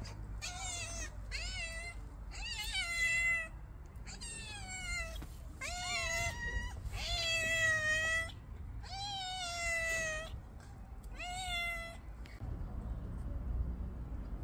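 Stray cat meowing again and again, about eight drawn-out meows over some twelve seconds, several bending up and then down in pitch, then falling quiet.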